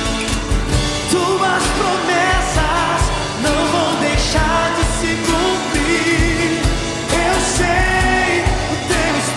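Christian worship song: a voice sings a long, wavering melodic line over a band with a steady drum beat.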